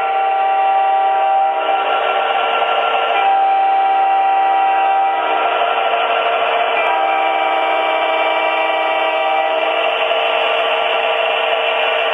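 Electronic horns of MTH model SD70 diesel locomotives sounding a series of long blasts, several horns overlapping in changing chords, over the steady rumble of the train running.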